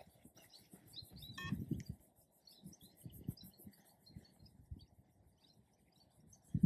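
Birds chirping, with one longer gliding call about a second and a half in. Under them come soft thuds of footfalls on grass as a man jogs and slows to a walk. The footfalls are loudest a little over a second in.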